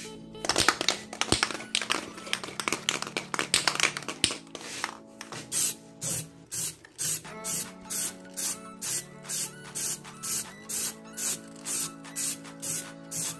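Aerosol spray-paint can hissing in a run of short, uneven blasts for the first five seconds or so, over electronic background music. After that the music carries on alone with a steady, crisp beat.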